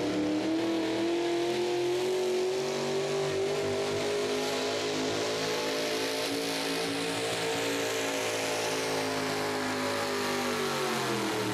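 Farmall 460 tractor engine running hard under full load while pulling a weight-transfer sled, its pitch climbing slowly and then falling off near the end.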